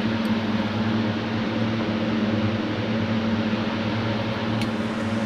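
Steady hum of a small electric motor with an even hiss of moving air, and two faint ticks, one just after the start and one near the end.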